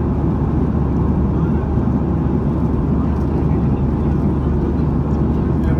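Airliner cabin noise in flight: a loud, steady, low rumble of the jet engines and airflow heard from inside the passenger cabin.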